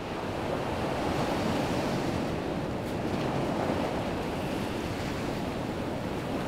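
Ocean surf breaking and washing onto the shore: a steady rush of waves.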